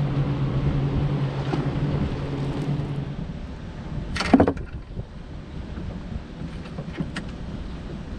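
A bass boat's electric trolling motor humming steadily, cutting off about three seconds in, over wind and water noise. A single sharp, loud noise comes a little after four seconds.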